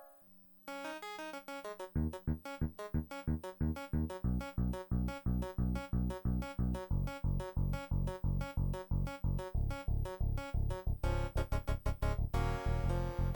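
Kawai FS640 arranger keyboard playing: a fast run of notes starts just under a second in, then a regular beat of low bass notes with quick higher notes over it, with the texture filling out near the end.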